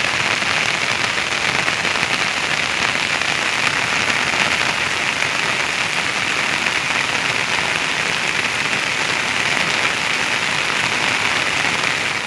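Steady, heavy rain falling, an even hiss without let-up.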